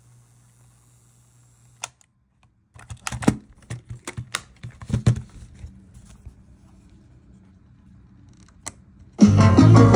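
Plastic clicks and clunks from a Sony WM-FS191 Sports Walkman cassette player as its cassette door is shut and its buttons are pressed: one click about two seconds in, a quick run of clicks between three and five seconds, and another click near the end. About nine seconds in, music starts suddenly as the tape plays.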